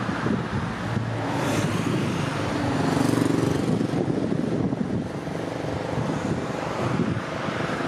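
Road traffic passing on a highway, one vehicle's engine hum swelling to its loudest about three seconds in and then fading, with strong wind buffeting the microphone.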